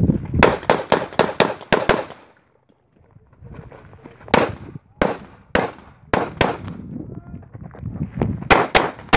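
Pistol shots fired by a practical-shooting competitor moving through a stage: a rapid string of shots in the first two seconds, a pause, several more shots from about four to six and a half seconds in, and another quick string near the end.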